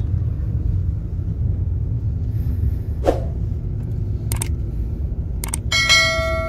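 A car driving slowly, heard from inside the cabin as a steady low rumble of engine and road noise. Near the end come a couple of short clicks and a ringing chime: the sound effect of a subscribe-button animation.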